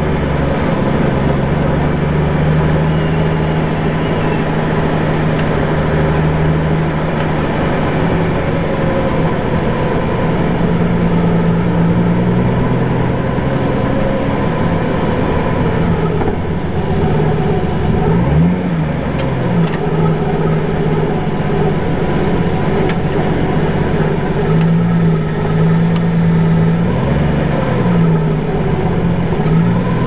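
Nissan R32 Skyline's turbocharged RB20DET straight-six running at low revs through a 3-inch turbo-back exhaust as the car rolls slowly. Its engine speed dips and picks up briefly a few times in the second half.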